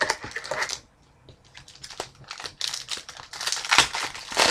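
Foil wrapper of a hockey trading-card pack crinkling as it is handled and torn open. The crackling comes on and off and is busiest over the last two seconds.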